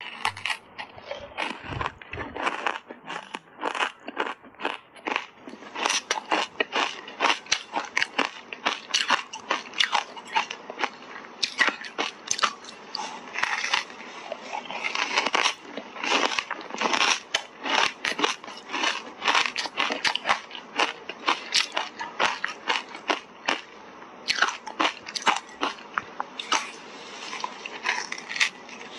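A block of ice coated in matcha tea powder being bitten and chewed: rapid, closely packed crunching and cracking of ice between teeth.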